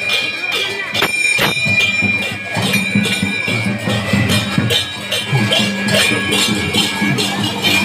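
Devotional procession music with jingling metal percussion (hand cymbals and bells) struck in a quick steady beat of about three or four strokes a second. A held high ringing tone runs over the first half.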